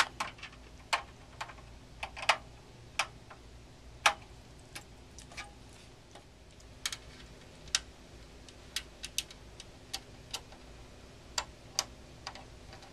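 Irregular sharp metallic clicks and ticks of a screwdriver and small screws against a steel computer case, as the side-panel screws are driven in by hand.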